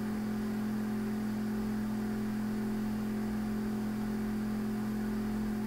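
Steady electrical hum with a few fixed low tones, the background noise of the recording, unchanging and with nothing else over it.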